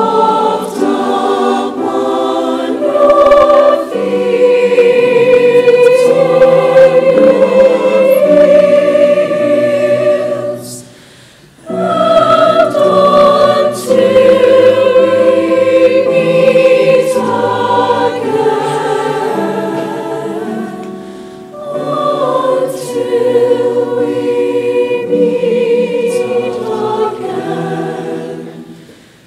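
Mixed choir singing with grand piano accompaniment, breaking briefly between phrases about a third and two-thirds of the way through and dying away near the end.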